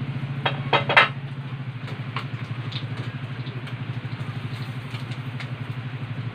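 A metal utensil clinking against cookware: three sharp clinks close together in the first second, the loudest about a second in, then a few lighter taps. A steady low hum runs underneath.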